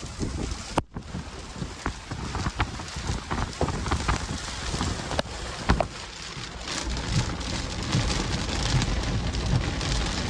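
Heavy wind-driven rain in a severe thunderstorm, with many sharp ticks of drops striking close by and wind buffeting the microphone. It grows louder over the second half.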